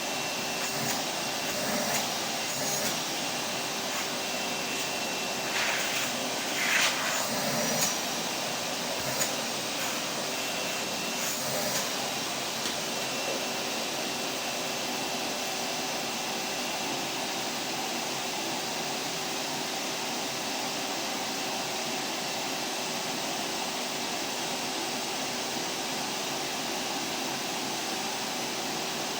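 Vacuum cleaner running steadily with a rushing drone, a constant hum and a faint high whistle. A few brief louder bumps come about six to eight seconds in.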